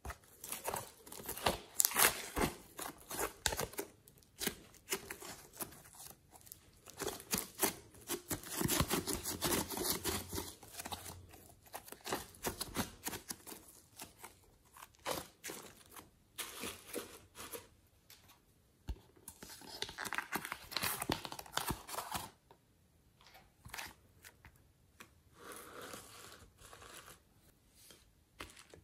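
Sticky slime being peeled out of a plastic mold tray and set down on a glass dish of foam beads: tearing, crinkly crackles and clicks in irregular bursts, quieter near the end.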